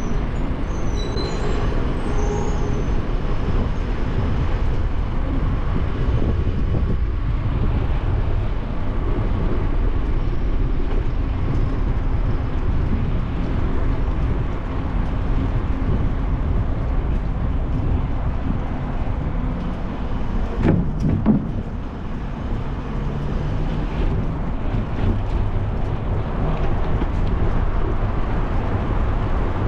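Steady wind rush and rumble on the microphone of a bicycle-mounted camera as the bike rolls over paving, with a brief louder sweep about two-thirds of the way through.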